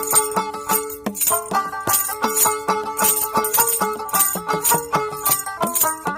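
Background music with a steady beat of sharp, regular high percussion hits over a moving melody.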